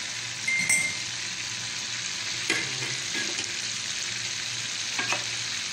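Chicken, liver and vegetables sizzling in oil in an aluminium pot, stirred with a metal spoon that knocks and scrapes against the pot a few times.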